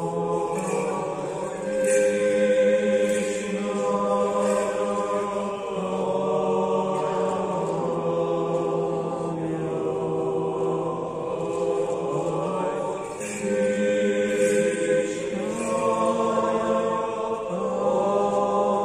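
Orthodox church choir singing slow memorial chant in several-part harmony. Long held chords shift every few seconds, with short breaks between phrases.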